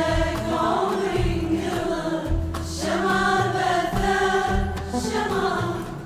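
A women's choir singing a melody together in long held notes, over instrumental accompaniment with repeating low bass notes.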